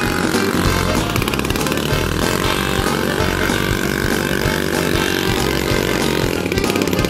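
Small moped engines revving with a buzzing note, one held at a steady high pitch for about four seconds in the middle.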